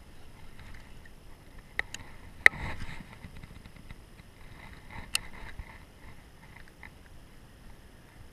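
Sharp clicks and knocks from handling a baitcasting rod and reel in a small boat: a quick pair about two seconds in, the loudest just after, and another about five seconds in.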